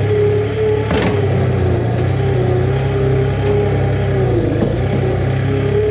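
Tractor engine running steadily under load, with a higher whine that wavers in pitch and a single knock about a second in.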